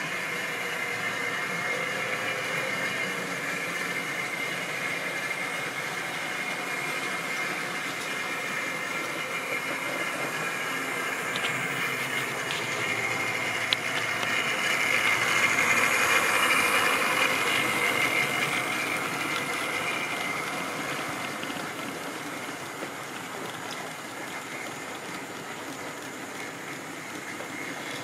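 Model railway locomotive's small electric motor humming as it hauls a long train of tank wagons along the track, with the wagons' wheels rattling on the rails. It grows loudest as the train passes close, about halfway through, then fades away.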